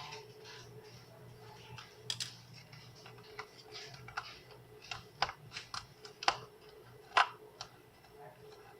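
Irregular light clicks and taps, the loudest a sharp tap about seven seconds in, over a faint steady hum.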